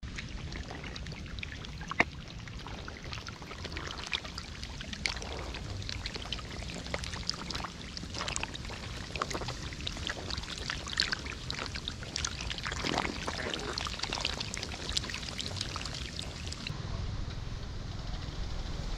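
Muddy shallow water splashing and sloshing as hands work through it, with many small irregular splashes and one sharp click about two seconds in. Near the end it gives way to a steadier hiss.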